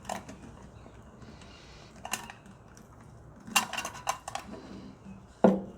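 Hard parts of a soldering station kit being handled and set down: a few sharp knocks and clatters, a quick cluster of them past the middle and the loudest knock near the end.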